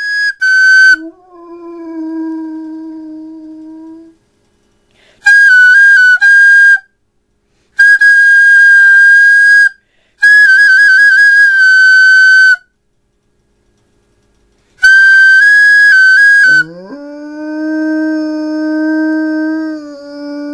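A flute plays long held notes, some trilled, in short phrases, and a large dog answers with low, baritone howls. One howl comes after the first note, and another starts near the end, rising in pitch and then held. The flute is louder than the dog.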